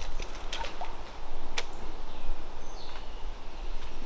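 Outdoor background noise, steady, with a few faint clicks and one sharp click or knock right at the end.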